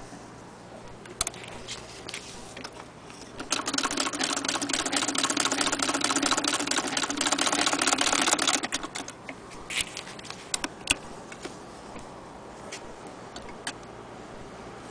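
Hand-cranked Singer Model 66K sewing machine stitching fabric: a fast, even clatter starts about three and a half seconds in and stops about five seconds later. A few separate clicks come before and after it.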